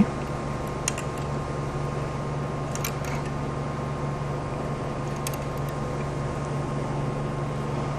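A 7 mm wrench tightening the lock nut on a 3D printer's Z endstop bolt: a few faint metal clicks, about a second in, near three seconds and past five seconds, over a steady low hum.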